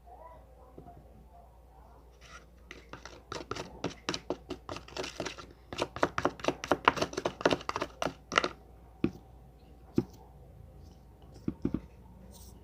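Slime mixture being stirred and worked in a bowl: a quick run of sticky clicking and scraping strokes for several seconds, then a few single knocks.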